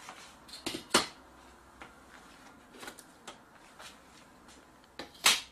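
Light knocks and clicks from handling the sheet-metal frame segments of an LCD panel on a workbench. There is a sharp knock about a second in, a few light ticks, and a louder clatter near the end.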